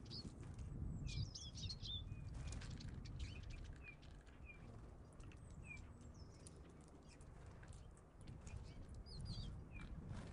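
Small songbirds at a winter seed feeder calling with short, high chirps and brief descending notes every second or so, with a few sharp taps. A low steady rumble lies underneath.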